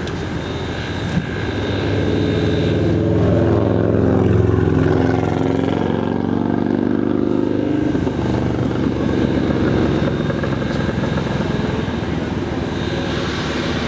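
Steady road and engine noise of a vehicle driving along the highway, with an engine tone that swells and bends in pitch for a few seconds in the middle.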